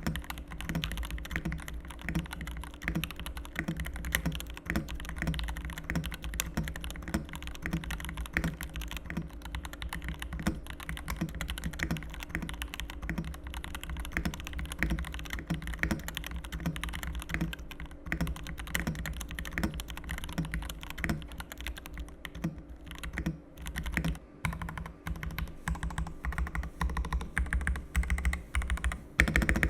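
Yunzii YZ84 Pro mechanical keyboard being typed on continuously, a dense, irregular run of keystrokes. The sound is fairly quiet and a little clacky but not shrill, with pre-lubed stabilizers and no rattle.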